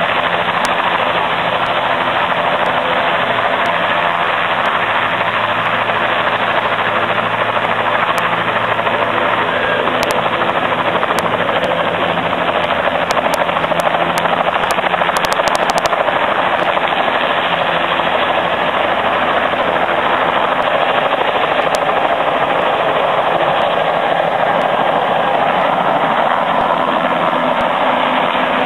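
Helicopter running on the ground with its rotor turning, a loud steady drone with low engine tones, warming up before takeoff.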